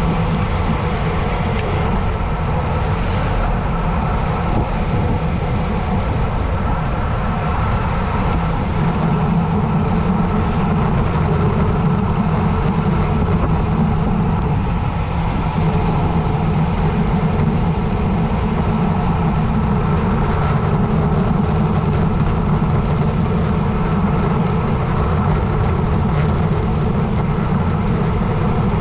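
Steady rush of wind over the microphone of a bicycle descending at speed.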